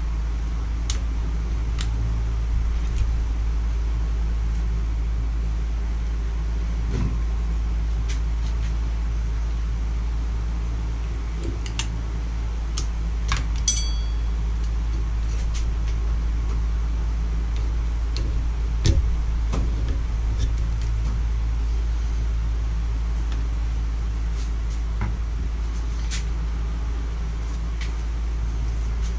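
Scattered small clicks and taps of a utility knife and pick tool working seals out of a hydraulic cylinder's steel gland, over a steady low rumble. A short metallic ping sounds about 14 seconds in.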